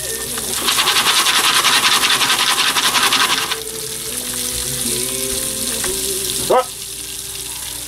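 Jiffy Pop foil pan on a gas burner, the oil and kernels inside sizzling as the popcorn heats up to popping. The sizzle is loudest and most rapid for the first three seconds or so, then settles lower.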